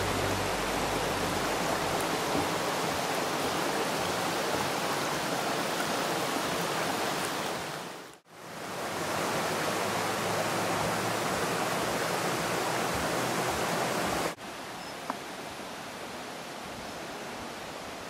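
Steady rushing water. It fades out and back in about eight seconds in, then after an abrupt cut carries on at a lower level, with one brief click a second later.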